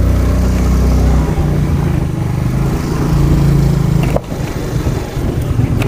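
Motorcycle engine running at low speed as the bike rides slowly, with wind on the microphone. About four seconds in there is a sharp click, and the engine then goes quieter, as if the throttle is eased off.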